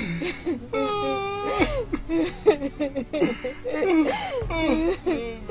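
Several people's voices praying aloud at once, mixed with crying, with a long wavering cry about a second in.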